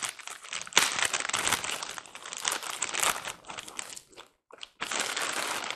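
Clear plastic bag crinkling as hands pull it off a cardboard box, in irregular bursts that pause briefly about four seconds in and start again.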